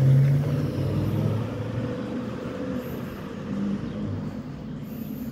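Delivery van's engine pulling away, rising a little in pitch at the start and then fading steadily as it drives off.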